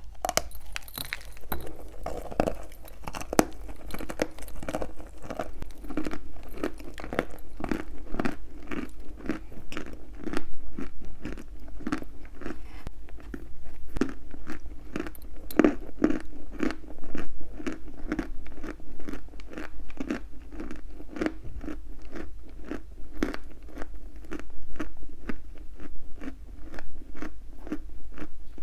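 Chalk being chewed close to the microphone: crisp crunches at a steady pace of about three a second.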